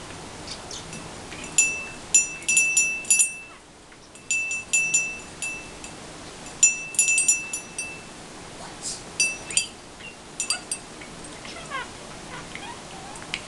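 Small metal cage-toy bell rung by a budgie in several bursts of quick clapper strikes, each strike ringing with a clear high tone. Near the end come a few short budgie chirps.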